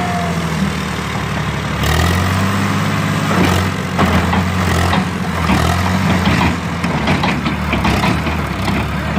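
Tractor diesel engine running under load, its pitch rising about two seconds in as it pulls the tipped trailer forward, with knocks and rattles in the second half.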